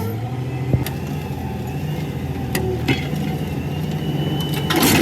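An engine running steadily at idle, with a few sharp metallic clicks and a brief louder clatter near the end.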